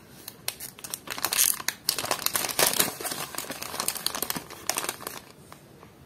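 Crinkling of a shiny foil-plastic Cars Mini Racers blind-bag packet being handled and turned over in the hands. It is a dense run of crackles, loudest in the first half, that dies away about five seconds in.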